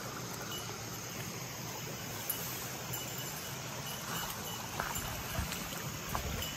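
Steady outdoor ambience of a shallow creek running over rocks, with a faint high trill of insects. A few faint rustles and clicks of brush in the second half.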